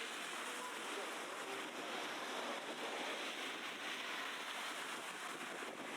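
Steady city street ambience: a wash of traffic and crowd noise with faint voices of passers-by.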